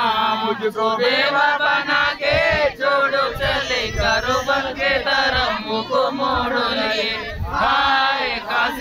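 Men's voices chanting together in repeated rising and falling phrases, with a few low thuds mixed in.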